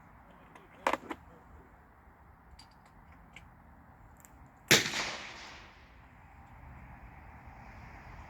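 A single gunshot about halfway through, a sharp crack followed by an echo that fades over about a second. About a second in there are two sharp clicks, like rifle or gear handling.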